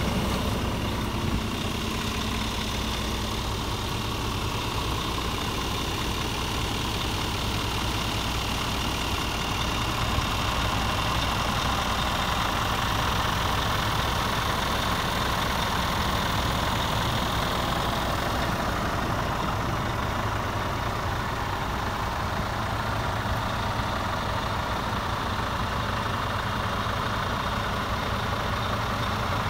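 Scania G450 tractor unit's 13-litre straight-six diesel idling steadily.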